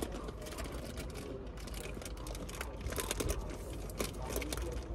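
Plastic sweets packet crinkling and rustling as it is handled and opened, a rapid, irregular run of small crackles.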